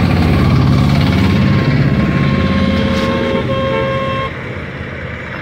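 Motor vehicles running in road traffic, with a horn sounding steadily from about a second and a half in until about four seconds in.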